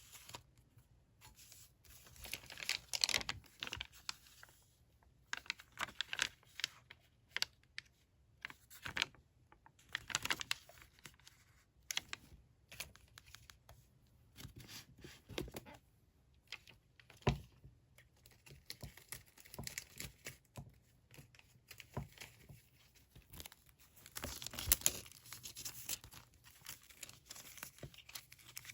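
Paper and stickers being handled: irregular rustling, crinkling and tearing, with scattered light taps and one sharper knock about 17 seconds in.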